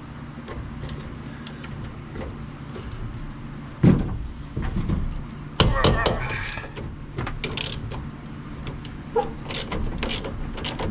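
Scattered knocks and metallic clanks of a wrench working the door hinge bolts on an old truck, one sharp knock about four seconds in and a cluster about two seconds later, over a steady low hum.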